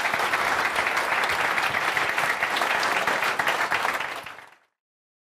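Audience applauding, a dense patter of clapping that fades out about four seconds in.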